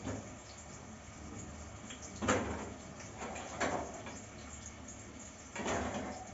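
Kitchen cupboard, drawer or oven-door sounds: about four separate knocks and clunks, the loudest about two seconds in, over a low steady hum.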